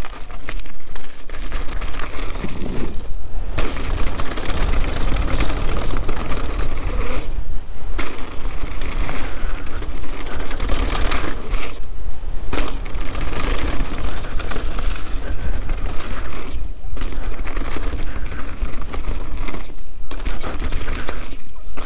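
Canyon Sender downhill mountain bike ridden fast over a rocky, gravelly trail: tyres crunching over stones, the chain and frame rattling with constant small knocks, under heavy wind rumble on the bike-mounted camera's microphone. The noise drops out briefly several times.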